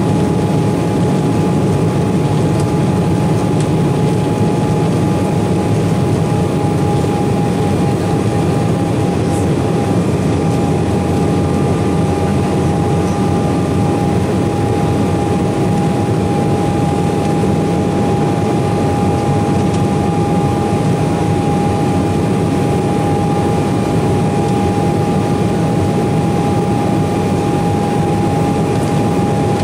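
Embraer 195's CF34-10E turbofan engines at climb power, heard inside the cabin: a steady low roar with a constant high whine over it.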